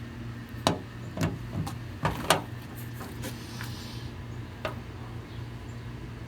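Ratchet strap being handled: scattered clicks and light knocks from the metal ratchet and its webbing as the strap end is fed through the ratchet's slot. A steady low hum runs underneath.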